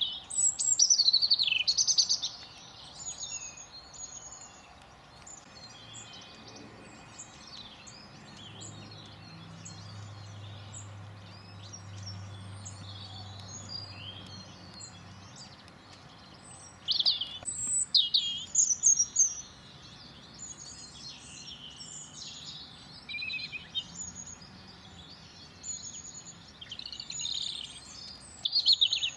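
Small songbirds chirping and singing, with many short high calls and trills coming in busy bursts near the start, about two-thirds of the way through and near the end.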